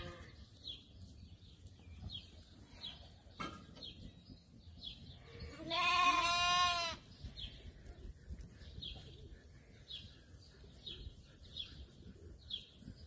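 A sheep bleats once, a single wavering call about a second long, a little past the middle. A faint high chirp repeats every half second or so throughout.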